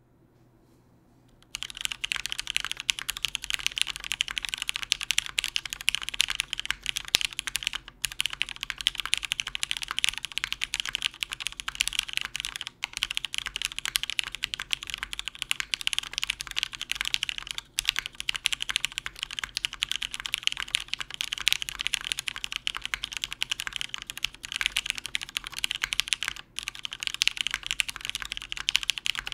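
Fast, continuous typing on a Matrix 8xv2.0 Original tenkeyless mechanical keyboard with an aluminium plate, Cherry MX Black linear switches lubed with 205g0, and GMK keycaps. The dense run of keystrokes begins about a second and a half in, with only a few brief pauses.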